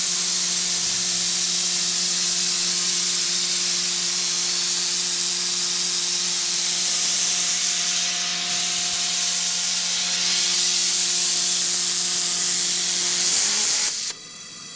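Steam boiler's pop-off safety valve, set at 100 lbs, blowing off steam: a loud steady hiss with a low hum running through it. It cuts off suddenly near the end as the valve reseats.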